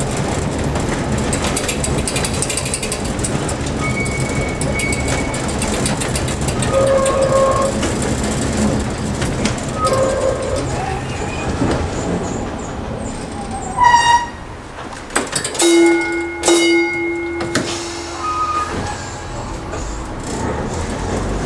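Peter Witt streetcar rolling over curved track: a steady low rumble of wheels and running gear on the rails, broken by short squeals from the wheels on the curves. About two-thirds in, the rumble falls away, a brief loud ringing tone sounds, and a held squealing tone follows for about two seconds.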